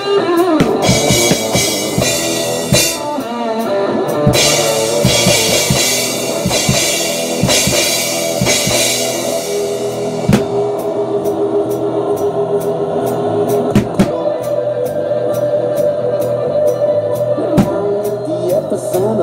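Acoustic drum kit played along to a rock track: bass drum and snare hits under a wash of crash cymbals for the first half, then from about ten seconds in a tighter, even beat of sharp cymbal ticks. The recorded song's guitar sounds underneath.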